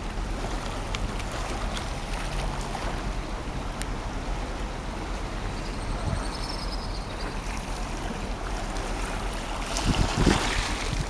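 Steady wash of harbour water and wind, with gusts buffeting the microphone near the end.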